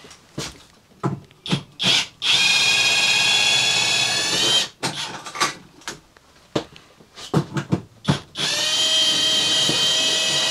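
Cordless drill backing out the long mounting screws of a roof air conditioner through the ceiling frame. It runs twice with a steady whine, about two and a half seconds each time, starting about two seconds in and again near the end, with clicks and knocks of handling in between.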